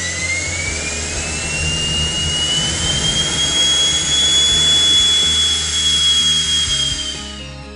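Miniature metal 3D-printed (DMLM) turbine jet engine running on a test stand: a rising whine over the rush of exhaust as it spools up, holding steady at high speed, then starting to spool down near the end.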